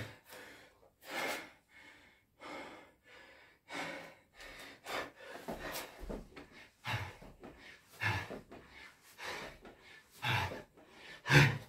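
A man breathing hard through a Navy SEAL burpee with five push-ups: short, sharp breaths about once a second, with a louder one near the end.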